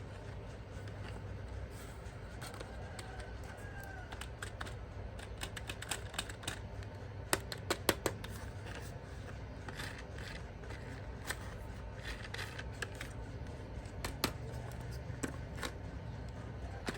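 Irregular small clicks and snips of hands handling plastic toy parts and packaging, the sharpest clicks about six to eight seconds in.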